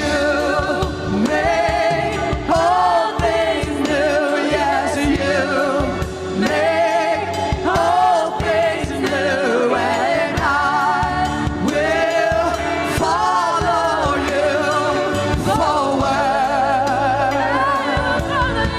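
Gospel music performed live: singers holding long notes with vibrato over a band with drums.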